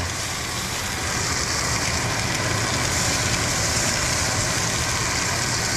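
Blackened-seasoned fish fillets sizzling in hot butter and oil in a cast iron skillet on medium-high heat, a steady frying hiss that grows a little louder about a second in as the fillets go into the pan.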